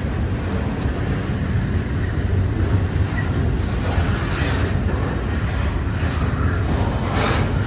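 CPKC freight train of intermodal cars rolling past: a steady, loud low rumble of wheels on rail, with brief sharper noises about four and a half seconds in and again near the end.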